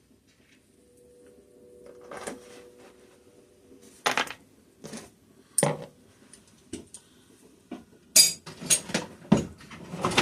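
Hand tools and steel engine parts clanking and knocking against each other during engine teardown, a string of sharp metal clanks, the loudest cluster in the last couple of seconds.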